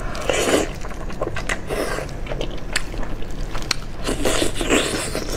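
Close-up eating sounds: biting into and sucking at a fatty piece of steamed fish in chili sauce, with wet mouth smacks and sharp little clicks in irregular bursts.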